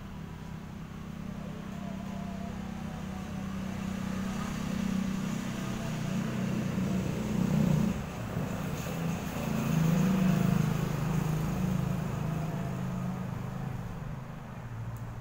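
A motor vehicle's engine running nearby, growing louder to a peak about two-thirds of the way through and then fading away.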